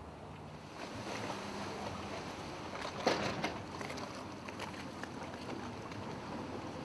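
Fast catamaran passenger ferry running its engines while coming alongside a dock, with water churning against the hulls and a brief louder rush of water just after three seconds in.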